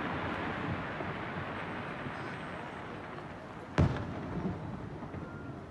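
Fireworks display: a dense wash of rumble and noise fades gradually, then a single sharp firework bang goes off about two-thirds of the way through.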